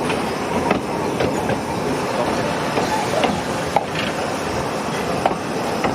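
Narrow-gauge train running on the Brecon Mountain Railway: a steady rumble with a few sharp clicks and knocks scattered through it.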